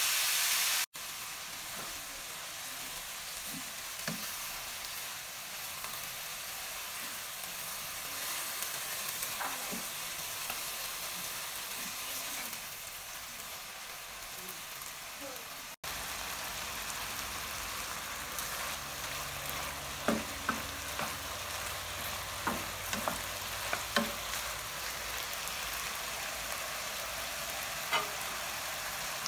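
Diced chicken sizzling steadily in hot oil in a nonstick frying pan while a spatula stirs and scrapes it. In the second half the spatula knocks against the pan several times, and the sound cuts out briefly twice.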